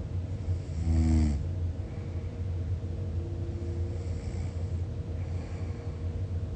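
A sleeping person snoring over a steady low rumble. The loudest snore comes about a second in, a short pitched snort falling slightly in pitch; fainter breaths follow.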